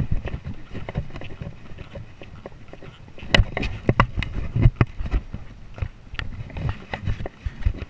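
A ridden horse moving over beach sand: uneven thuds of its steps with sharp clicks and knocks from its tack, heard from the saddle, busiest about three to five seconds in.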